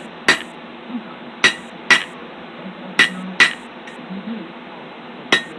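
Blacksmith's hammer striking hot steel on an anvil, six ringing blows spaced unevenly, some in close pairs, as the end of a roasting stick is flattened.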